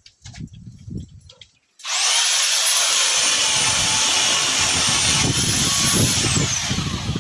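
Black & Decker PS7525 corded electric pole saw starting abruptly about two seconds in, its motor and chain running with a high whine. The pitch sags for a couple of seconds as the chain bites into a branch, rises again, then winds down near the end.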